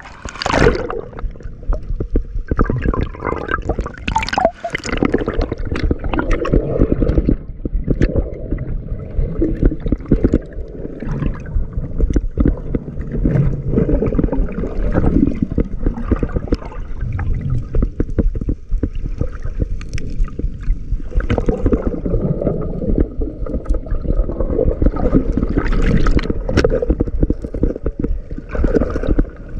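Sea water gurgling and sloshing around the microphone, with bubbling and small irregular clicks. The sound is muffled and mostly low.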